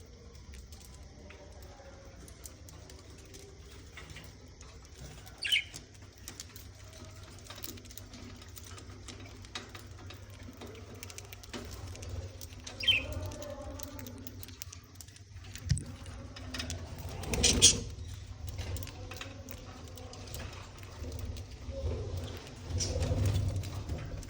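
Budgerigars chirping now and then in short calls, the loudest about seventeen seconds in, over scattered light ticks and scratches.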